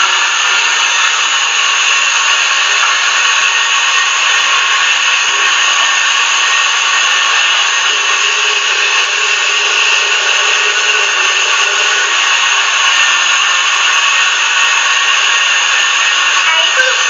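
Electric blender running steadily at full speed, blending a liquid pudding mix of eggs, water, sugar and powdered milk.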